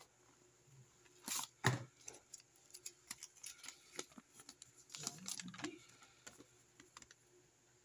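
Unboxing handling noise: a cardboard box being opened and a plastic-wrapped paper instruction sheet crinkled and unfolded by hand. Scattered rustles and clicks, with a louder knock about a second and a half in and another burst of rustling about five seconds in.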